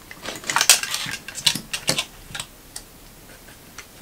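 Small hard-plastic clicks and knocks from the Robomaster S1's gimbal housing and multimeter test probes being handled and repositioned, a quick cluster in the first two seconds or so, then a few scattered ticks.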